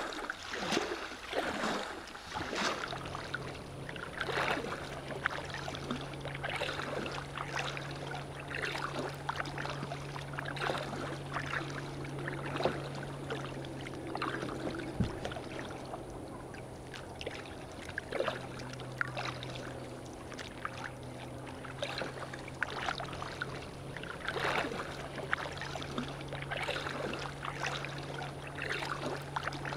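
Kayak paddle strokes and water splashing and lapping against the kayak's hull, in a continuous stream of small splashes. A steady low hum sets in about three seconds in and holds under the water sounds.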